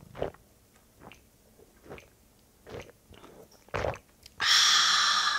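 A person gulping beer from a can, about five swallows roughly a second apart. This is followed by a loud, breathy 'ahh' of satisfaction after the drink, which fades away.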